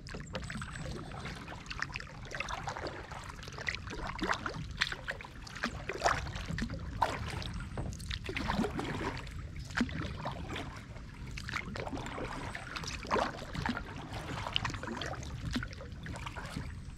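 Kayak paddling: the paddle blades dip into the water and drip and trickle off between strokes, every second or two, over a steady low rumble.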